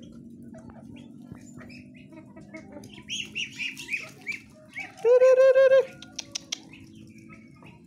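Calls from a flock of poultry feeding together: a run of about six quick high peeps around three to four seconds in, then a loud, rapidly pulsing squawk lasting under a second about five seconds in, followed by a few sharp clicks.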